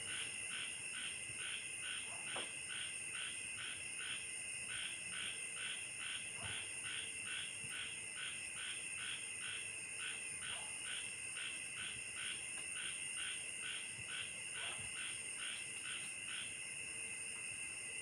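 Insects chirping in an even rhythm, about three to four pulses a second, over a steady high-pitched drone; the chirping stops near the end while the drone goes on.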